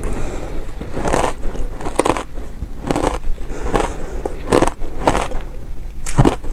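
Shaved ice being bitten and chewed: a run of crisp, powdery crunches, about one or two a second. The audio is sped up to 1.25 times.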